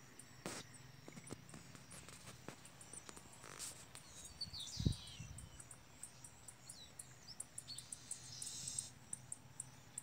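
Faint short bird chirps among steady rapid high ticking of insects, with a dull thump about five seconds in.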